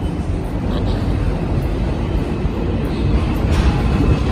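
Low, steady rumble of a subway train standing at the elevated station.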